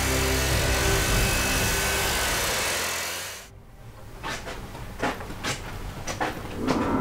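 Leaf blower running steadily at full blast. It cuts off abruptly about three and a half seconds in, leaving a quiet room with a few light scattered knocks.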